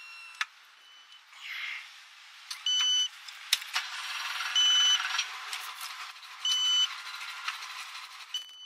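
A high electronic beep, each about half a second long, repeating about every two seconds, over a rushing noise with scattered clicks and knocks.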